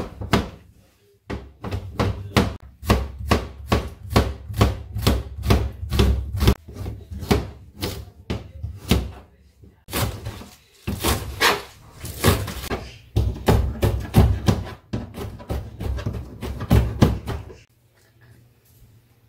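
Kitchen knife chopping vegetables on a plastic cutting board: quick, regular knocks of about three to four a second, with a few brief pauses, stopping near the end.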